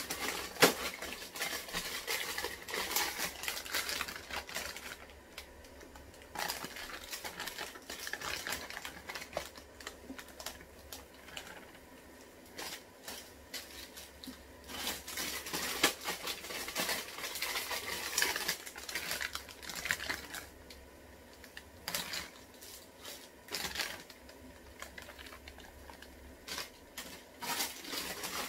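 Plastic instant-noodle packets being crinkled and torn open, and the noodle blocks laid into a pot of water, in irregular bursts of rustling and light clicks with quieter pauses between.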